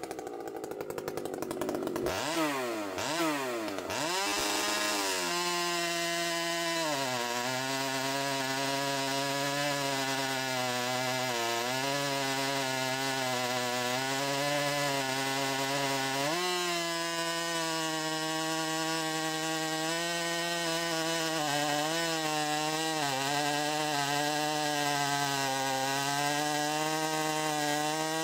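Piped 95cc Holzfforma G395xp two-stroke chainsaw with a 36-inch bar and .404 chain, revving up and down for the first few seconds and then cutting steadily through a large log. Its engine pitch sags under the heavy load of the big chain, picks up again about halfway through, and dips a few more times.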